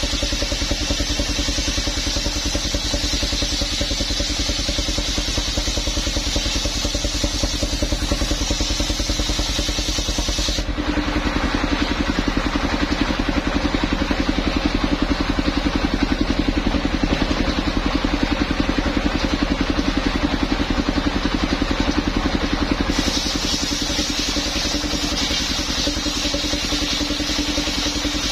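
Small engine of a sawing machine running steadily at a constant speed while cutting a coconut trunk. Between about 11 and 23 seconds in, the sound turns harsher and noisier.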